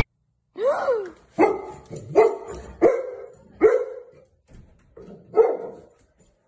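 Golden retriever barking, a string of about six barks a little under a second apart, the last after a short pause.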